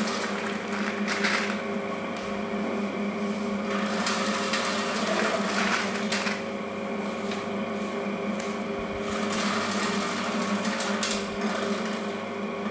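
Electric slicer machine's motor running steadily while it cuts spice rhizomes into slices, with a few brief louder spikes on top of the steady hum.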